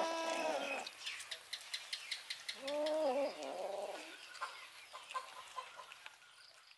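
Cat meowing: a long meow ends about a second in, and a second, wavering meow comes around three seconds in. Quick clicks of cats chewing and eating from a plate run throughout and fade out near the end.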